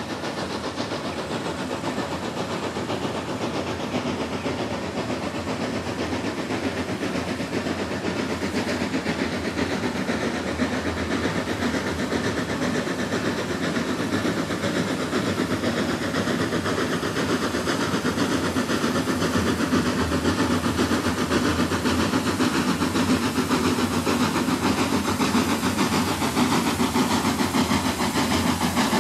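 A Sentinel steam bus, converted from a 1931 Sentinel DG6P steam waggon, driving under steam. Its two-cylinder double-acting engine gives a fast, even exhaust beat with hissing steam, growing slightly louder as the bus approaches.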